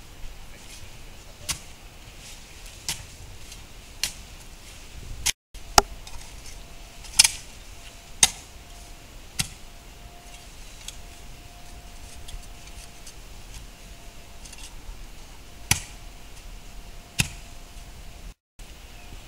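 Spade blade chopping into the soil along a bed edge next to a concrete sidewalk: sharp strikes about one every second or so, with a long pause about halfway through before two more strikes near the end.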